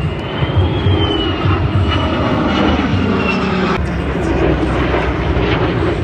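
Military jets flying overhead: a loud, steady engine rumble with a high whine that rises and then falls in pitch over the first three seconds as they pass. The sound changes abruptly about four seconds in.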